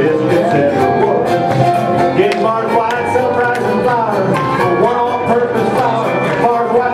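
Live bluegrass gospel song: a man sings lead over a full bluegrass band of acoustic strings and drums.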